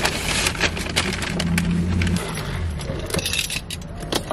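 Crinkling, rustling and light clicks of takeout food packaging being handled, over the low steady hum of a car.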